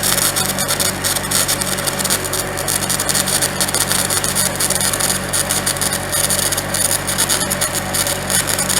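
Stick welding with 7018 rod: a steady, unbroken arc crackle and hiss as a weld bead is run into a ground-out crack in a backhoe boom. A steady low hum from the welding machine runs underneath.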